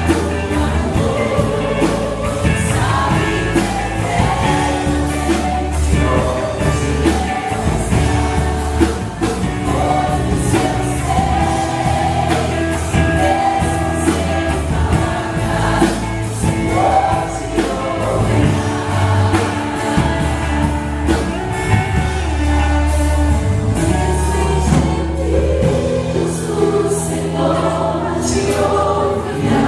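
A live gospel worship song: a choir and singers over a band with a steady bass line and cymbals.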